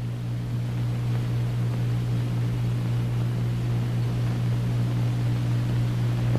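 Steady low hum with an even hiss over it and no other distinct sound: the background noise of an old film soundtrack.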